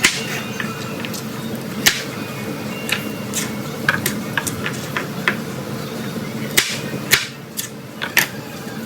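Kitchen knife chopping baby carrots on a cutting board: about a dozen sharp, irregular knocks with uneven gaps between them.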